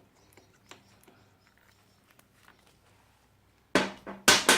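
Faint scattered clicks of hand tools as an old, seized spark plug is worked out of a Kawasaki Sherpa 250's cylinder head, then three loud, short handling noises in quick succession near the end. A faint steady low hum runs underneath.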